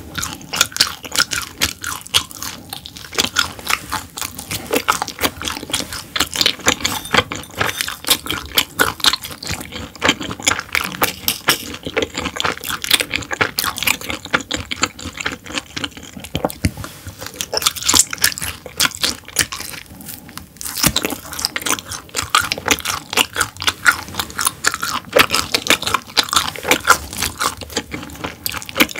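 Close-miked chewing with dense, continuous crunching and wet clicks of a mouthful of gwamegi (half-dried fish) wrapped in raw vegetables, pausing briefly about two-thirds of the way through.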